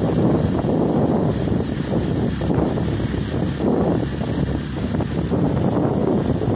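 Steady, rumbling noise of vehicles on the move, from the motorcycles riding ahead, mixed with wind buffeting the microphone.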